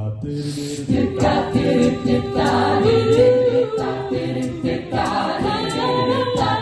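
A cappella group singing held harmony chords, with vocal percussion keeping a steady beat underneath.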